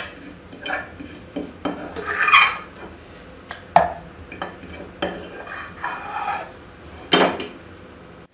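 A steel spoon scrapes cooked masala out of a metal pan and knocks against a stainless-steel mixer-grinder jar. It makes irregular scraping and clattering, with two sharp clinks about four and seven seconds in.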